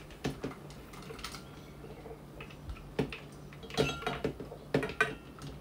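Scattered light clinks and taps of a metal scoop and utensils against small stainless-steel bowls as they are handled, in small clusters, over a low steady hum.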